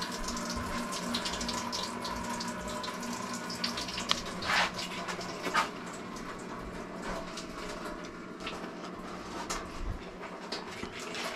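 Water running steadily from an opened tap, purging air and debris out of the supply lines after the water is turned back on. A few brief sharp sounds break in around the middle.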